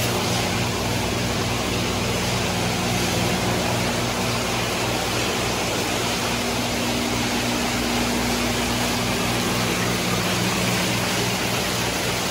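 Water circulating through live-bait tanks, spraying and splashing into the water: a steady rushing hiss with a steady low hum underneath.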